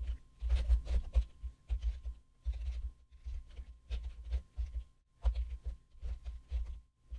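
Typing on a computer keyboard: quick bursts of keystroke clicks, each with a dull thump underneath, broken by short pauses.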